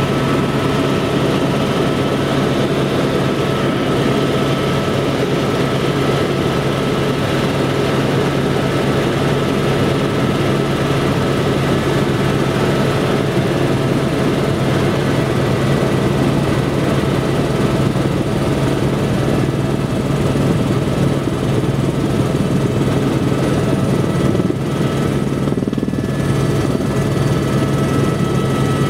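Helicopter in flight heard from inside the cabin: a loud, steady drone of engine and rotors with a constant hum.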